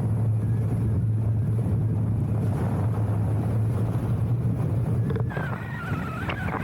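A steady engine hum with wind on the microphone, the hum changing about five seconds in as a faint wavering higher tone comes in.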